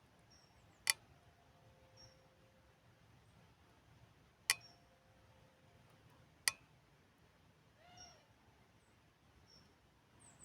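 Quiet countryside ambience with faint, short, high bird chirps and one arched call about eight seconds in. Three sharp clicks stand out, the first two leaving a brief ringing tone.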